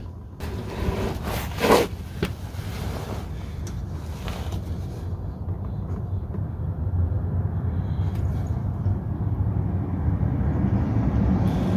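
A low, steady background rumble, growing slightly louder toward the end, with a few light clicks and knocks in the first few seconds.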